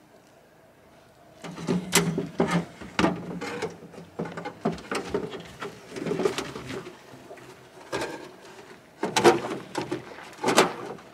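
Clear flexible plastic hose being handled and shoved into a firewood processor's sheet-metal sawdust chute: irregular creaking, rustling and knocking, starting about a second and a half in.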